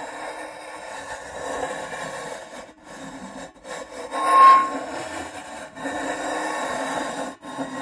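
Sheet metal rubbed and scraped against metal in several grinding strokes with short breaks between them, rising about halfway through into a loud, high squeal.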